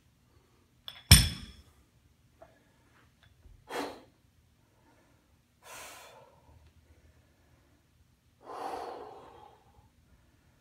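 A man breathing out hard three times, the last breath the longest, while straining through sledgehammer floor levers. About a second in there is a single sharp metallic clank with a short ring.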